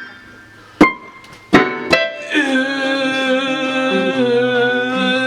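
Electronic keyboard played: three short, sharp notes, then from about two seconds in a held chord of several notes that sustains steadily.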